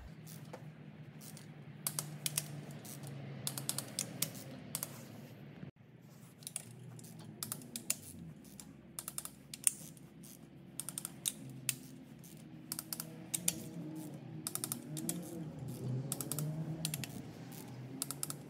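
Torque wrench ratcheting in repeated runs of quick clicks as the main bearing cap bolts of a 1.9 TDI engine block are tightened to 65 Nm, with an occasional louder single click.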